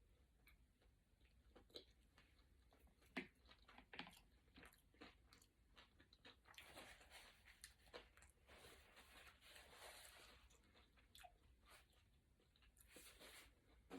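Faint close-up chewing and crunching of a crispy California roll: scattered crisp clicks at first, turning to denser crunching from about halfway through.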